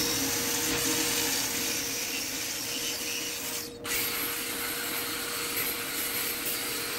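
Angle grinder with a flap disc grinding a steel plate held in a bench vise: a steady abrasive hiss over the motor's whine, with a brief break a little under four seconds in.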